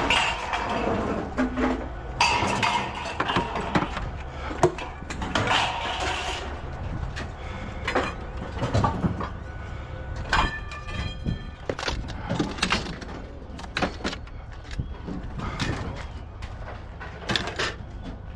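Scrap metal pieces knocking and clinking as they are handled and sorted, with a brief metallic ringing about ten seconds in, over a steady low rumble.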